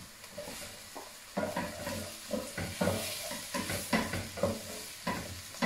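Onion and garlic sizzling in a saucepan as diced peppers are tipped in and stirred, the spoon scraping and knocking against the pan about two or three times a second from about a second and a half in.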